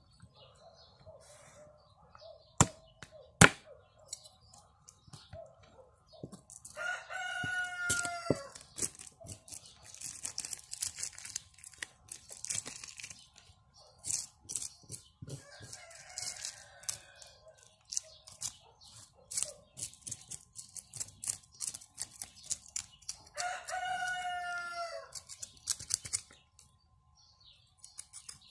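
A rooster crows twice, about seven seconds in and again near the end. Between the crows a knife scrapes scales off a crucian carp in rapid short strokes on a wooden board. Two sharp knocks come near the start.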